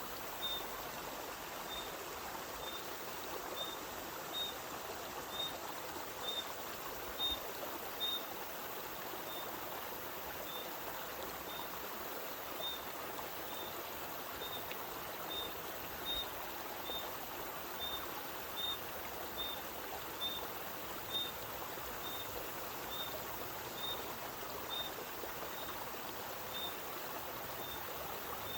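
Spring water flowing and trickling steadily out of a mountainside, with a bird repeating a short high note about once a second.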